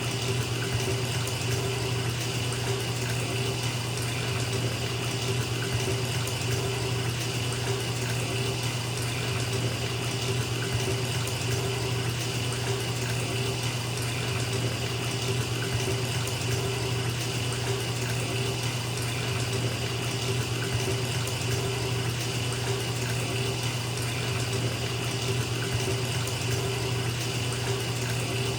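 Bathtub filling from the tap: water pouring steadily into the tub with an even, unbroken rush.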